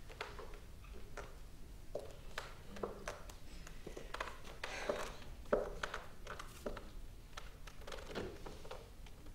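Faint scattered knocks, clicks and rustling of stage business as props are handled and actors move, with a sharper knock a little past the middle.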